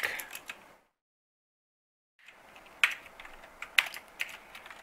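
Computer keyboard typing: a few key clicks, a break of dead silence lasting over a second, then a run of single keystrokes.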